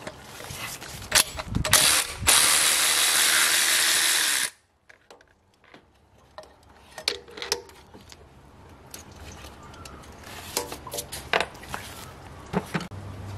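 Cordless electric ratchet running for about two seconds, spinning off a nut on the engine's thermostat housing, then stopping suddenly. Clicks and knocks of the tool and fittings being handled come before and after.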